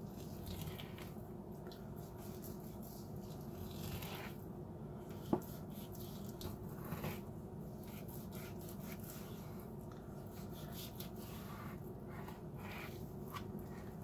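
Kitchen knife slicing through a raw ribeye roast on a plastic cutting board: faint scraping, squishing strokes of the blade through the meat, with one sharp click about five seconds in, over a steady low hum.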